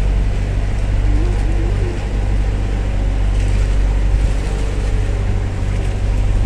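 Engine of a motorized outrigger boat running steadily under way: a loud, unchanging low drone over a rushing hiss of wind and water.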